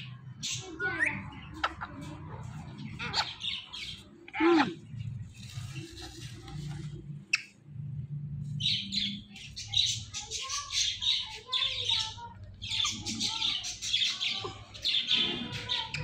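Rose-ringed parakeets (Indian ringnecks) chattering and squawking in short, harsh calls, coming in dense runs through the second half.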